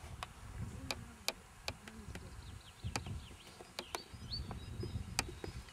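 Small birds chirping in short rising and falling notes over a low, uneven rumble, with several sharp clicks scattered through.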